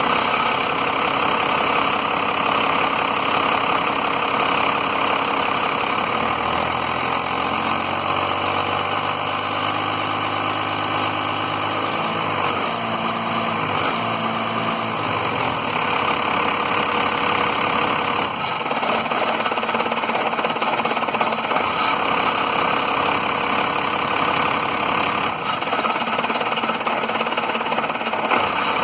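1993 Dodge Cummins 5.9-litre 12-valve inline-six diesel idling roughly, its speed wavering and stumbling now and then as it keeps cutting out periodically. The owner suspects the lift pump.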